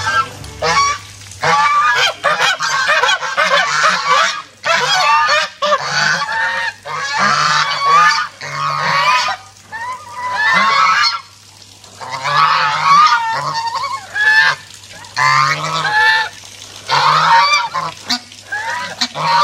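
Domestic geese honking loudly, many calls overlapping in repeated bursts, with brief lulls between them.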